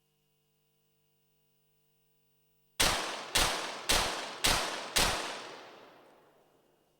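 A .22 Short rapid fire pistol fires a five-shot series: five sharp shots in quick, even succession, about half a second apart, each ringing on and dying away. This is one timed series at five targets.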